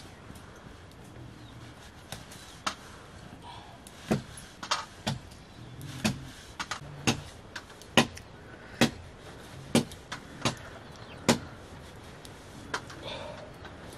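Large knife chopping pieces of buffalo meat against a wooden block: about a dozen sharp knocks, unevenly spaced.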